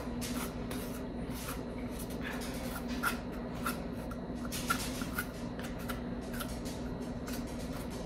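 A table knife spreading peanut butter along a cardboard toilet paper roll: soft, irregular scraping and dabbing strokes, a few each second, over a faint steady hum.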